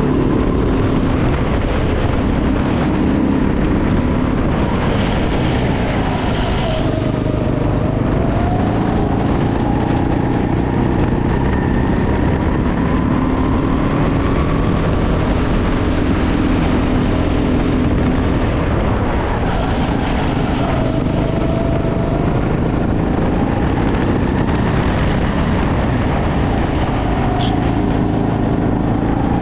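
Go-kart engine heard onboard while lapping, its pitch rising and falling again and again as the kart accelerates and slows through the corners.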